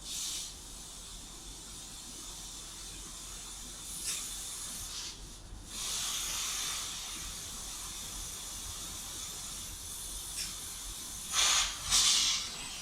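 Compressed air hissing steadily as an air-ride suspension air bag is filled through its air line toward about 110 psi. The hiss drops away briefly about five seconds in and comes back in louder bursts near the end.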